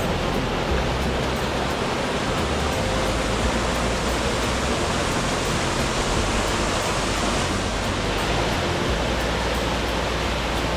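Steady rush of falling water from a mountain creek's cascades and waterfall, an even hiss without breaks.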